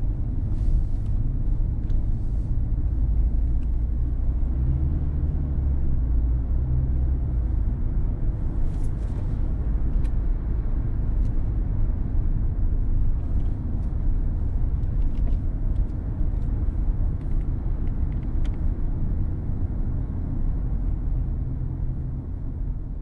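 Car driving: a steady low rumble of engine and road noise, with a few faint clicks scattered through it.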